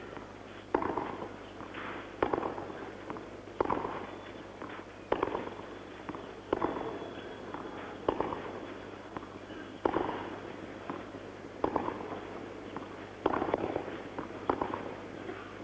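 Tennis ball struck back and forth by rackets in a baseline rally: about ten sharp hits, one roughly every second and a half, each with a short ring-out.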